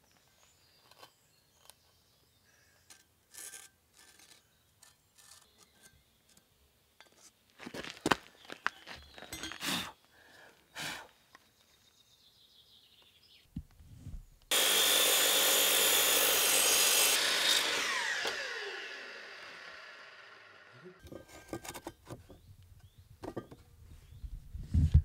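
A hand-held power saw cutting into a timber block in one short loud burst about halfway through, then its motor winding down with a falling whine once released. Before it, scattered knocks and taps of the timber being handled.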